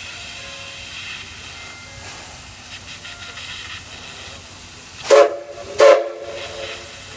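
Steam whistle of the C11 steam locomotive C11 207 sounding two short, loud toots about five seconds in, over a low steady hiss.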